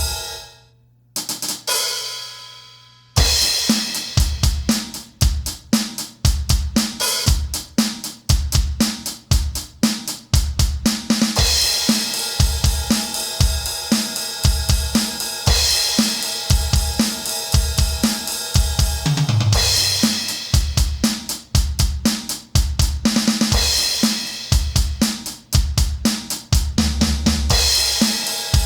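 Voik BOOST-700 electronic drum kit being played. A few separate hits open it, then from about three seconds in a steady groove of kick, snare and hi-hat runs on, with cymbal crashes every four seconds or so.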